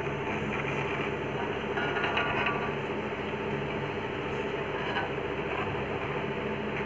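A steady mechanical hum over an even hiss, like a small motor or fan running, with a short brighter sound about two seconds in.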